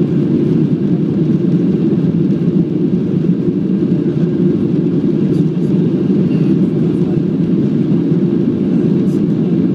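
Cabin noise of a Boeing 737-700 climbing just after takeoff: its CFM56-7B turbofans at climb thrust and the rush of air over the fuselage, a steady low roar heard from inside the cabin.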